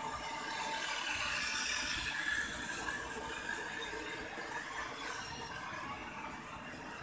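Toy model train running along a plastic track: a steady mechanical whir that grows a little fainter in the second half as the train moves away.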